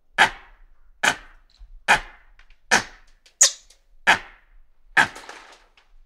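Hanuman langurs giving alarm barks: seven short, sharp barks, about one a second. One, shortly after the middle, is higher-pitched than the rest.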